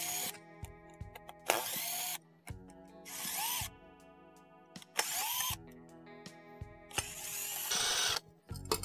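Cordless power screwdriver running in several short bursts, its motor whine rising and falling with each run, as it backs screws out of a sheet-metal plate on a TV panel.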